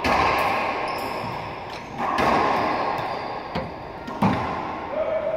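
Racquetball hits: the hollow rubber ball smacking off racquets and the court walls several times, each hit ringing with a long echo in the enclosed court, the sharpest about four seconds in. A drawn-out squeak starts near the end.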